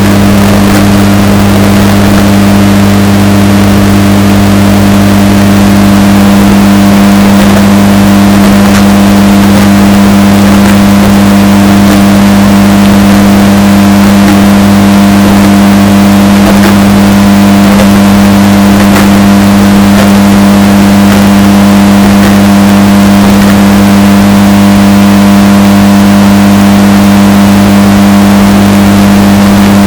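Washing machine running with a steady, unchanging motor hum, heavily bass-boosted and overdriven so it is very loud and distorted.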